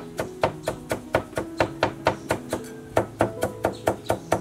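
Knife chopping leafy greens with quick, even strokes, about four or five a second, with a brief pause a little past the middle.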